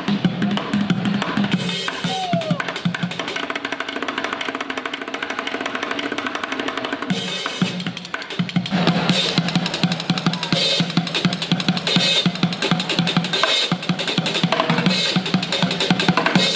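Live music driven by drums, with snare and bass drum, over a sustained low tone. It dips briefly about eight seconds in and comes back louder.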